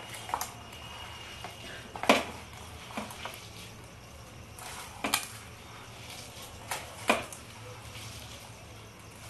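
Hand mixing sliced onions and gram flour in an enamel bowl, with about half a dozen short sharp clinks against the bowl, the loudest about two seconds in, over a low steady hum.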